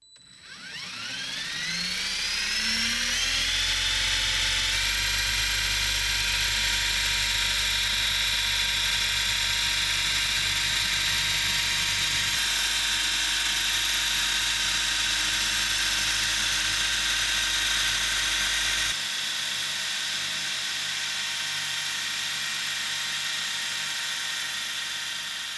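LEGO electric motors spinning a propeller downforce fan and driving the train's wheels up a steep track: a whine that rises in pitch over the first few seconds, then settles into a steady whir. About three-quarters of the way through, part of the sound drops out and the whir goes on a little quieter.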